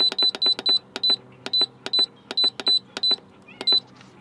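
Instant Pot Duo Mini's control panel beeping at each press of the time buttons while the sauté time is set: a quick run of short high beeps, each with a click, several a second and often in pairs, stopping near the end.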